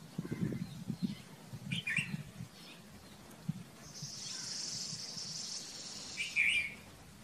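Red-vented bulbul calling: a short cluster of notes about two seconds in, then a louder, brief phrase near the end. A steady high hiss runs for a couple of seconds just before that last phrase.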